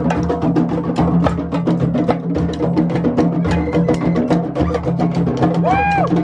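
Live hand-drum ensemble playing a dense, fast rhythm: congas, djembes and timbales struck by many players at once. A short whistle-like note rises and falls near the end.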